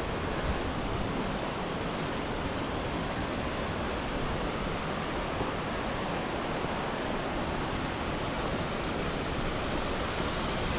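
Small cascading waterfall: a steady, even rush of falling water.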